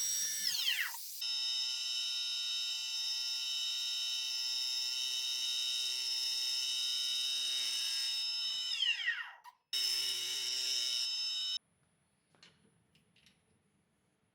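Hobby CNC spindle running with a steady high-pitched whine. It winds down twice with a falling pitch, then runs briefly again and stops, leaving only a few faint clicks.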